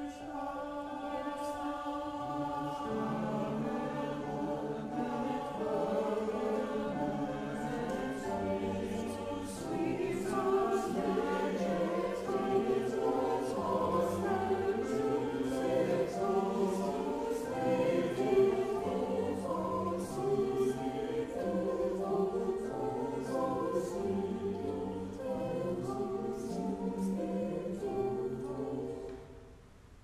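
Mixed choir singing in several-part harmony, the voices moving together in chords; the singing stops near the end.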